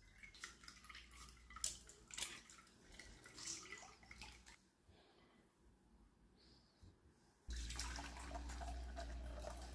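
Wet blended pandan pulp squeezed by hand in a mesh sieve, with juice dripping and splashing into a glass bowl in small irregular squelches. About three-quarters of the way in, a steady, louder stream of pandan juice starts pouring through a strainer into a glass jug.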